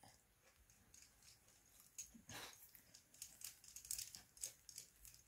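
Faint clicks and light scraping of small metal parts of an RC driveshaft pin-replacement tool being handled and screwed together by hand, with a slightly louder scrape about two seconds in.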